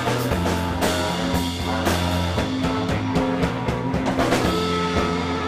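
Live rock band playing loud: electric guitars and a drum kit with regular cymbal and drum hits over held low notes.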